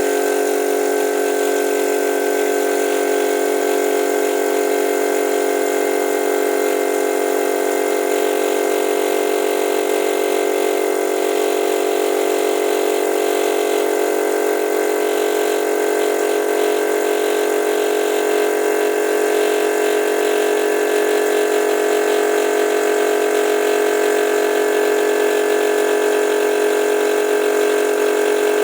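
Air compressor running steadily while a compressor-driven vacuum gun sucks up wet sand. It makes a constant hum with a rush of air, and faint crackling comes partway through.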